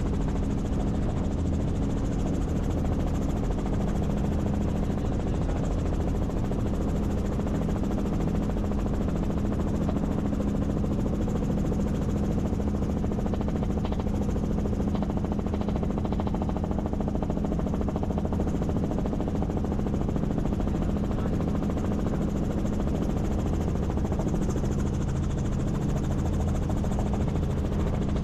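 Helicopter running steadily, its rotor and engine making a constant hum with a strong low tone that does not change.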